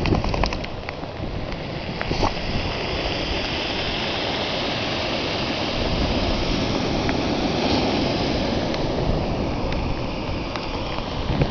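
Surf breaking on a cobble beach: a steady rushing of waves, mixed with falling rain. A few light clicks in the first second.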